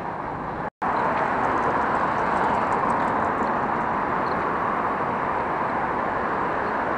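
Steady noise of busy road traffic, with cars driving past close by and their tyres and engines running. The sound cuts out for a moment just under a second in.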